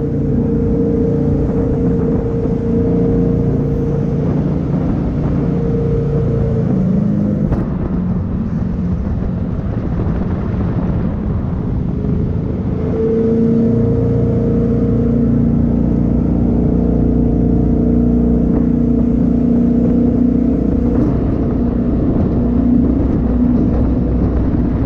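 A 420 PS jet boat's engine running steadily at cruising speed over water rush. Its note eases off about seven seconds in and picks up again around thirteen seconds.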